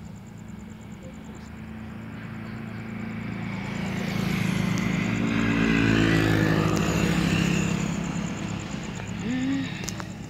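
A motor vehicle passing on a highway: engine and tyre noise builds for a few seconds, is loudest about six seconds in, then fades as it goes by.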